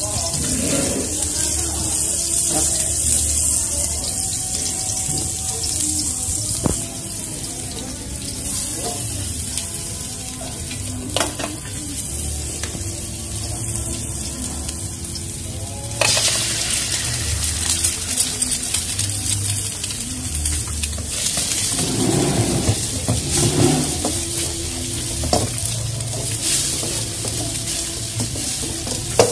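Hot oil sizzling in a wok over a gas burner as garlic, sausage and onion fry, with a few sharp spatula taps on the wok. About halfway through the sizzle turns suddenly louder as more food goes into the oil, and near the end a spatula stirs and scrapes egg around the wok.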